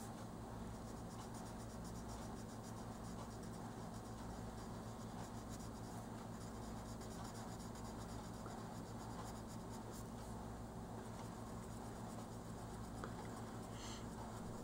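Oil-based colored pencil shading back and forth on coloring-book paper: faint, continuous rapid scratchy strokes over a steady low hum.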